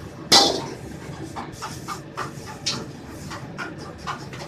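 A metal utensil working noodles in a steel wok: one loud clash about a third of a second in, then a run of quick scrapes and taps against the pan, over a steady background rush.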